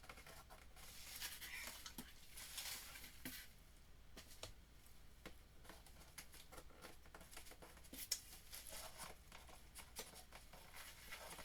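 Paper and packaging rustling and crinkling, with scattered light clicks and taps, as items are handled and unwrapped from a subscription box.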